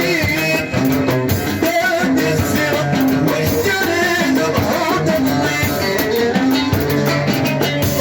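Moroccan chaabi music: a singer with a band over a steady beat.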